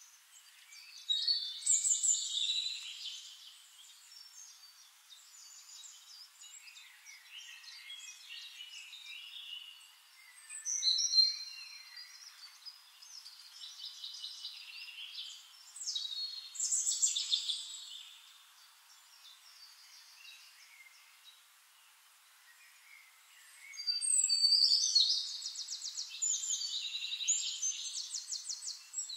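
Songbirds singing: high-pitched phrases come every few seconds with faint chirping between, and a long, rapid trilling song near the end.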